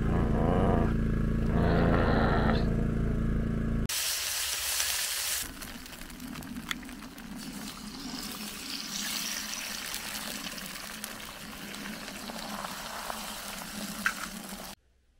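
Background music for about the first four seconds, then a steady sizzling hiss that cuts off abruptly shortly before the end.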